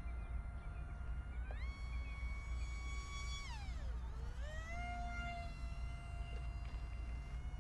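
Radiolink SU27 RC plane's electric motor and propeller whining in flight: the pitch rises about a second and a half in, holds, drops sharply around four seconds in as the throttle eases, then climbs back to a steady whine. A low wind rumble sits underneath.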